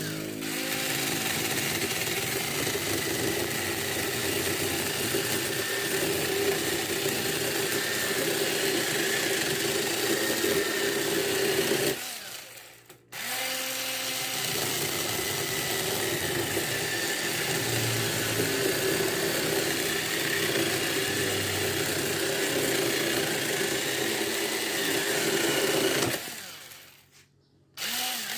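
Home-made cordless electric chainsaw, driven by a converted motorcycle starter motor, running steadily in two long spells. It stops briefly about twelve seconds in and again near the end, then starts up again each time. The maker's tests found its speed too low for it to cut well.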